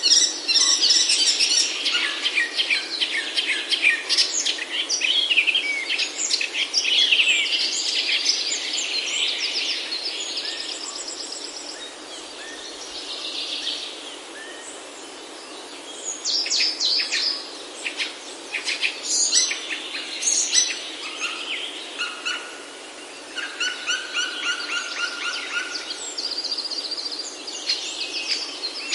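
Several birds chirping and trilling at once, a dense chorus with a quieter lull about halfway through before it picks up again, some calls repeated in steady trills.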